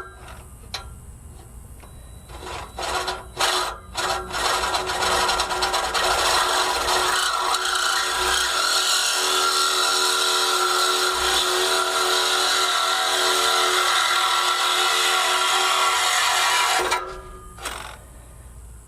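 A saw cutting through the stock steel exhaust pipe: a few short strokes, then about twelve seconds of steady rasping cutting that stops shortly before the end.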